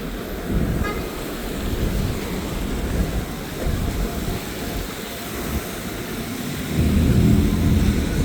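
City street traffic noise, a steady rumble of passing vehicles, with one vehicle passing louder near the end.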